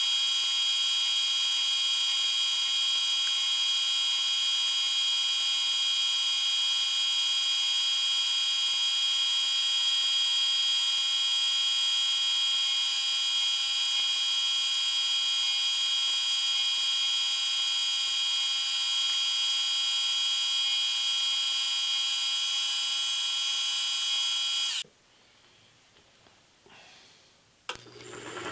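Vertical milling machine cutting metal with a quarter-inch end mill under power table feed: a steady high-pitched whine that stops suddenly about 25 seconds in. A click and a machine starting up follow just before the end.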